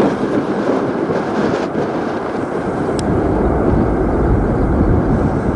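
Boeing 767-300ER's twin jet engines giving a steady rumble as the airliner rolls out down the runway after touchdown.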